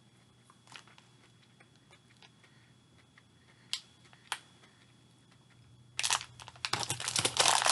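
Quiet chewing of sugar-coated cola-bottle gummy candies, with a few small mouth clicks. About six seconds in, loud crackling of a plastic snack wrapper being handled starts up.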